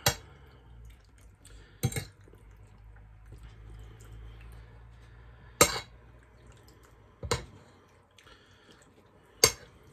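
Cutlery and dishes clinking at a meal, five short sharp clinks spaced a second or more apart, over a faint low hum that stops about three-quarters of the way through.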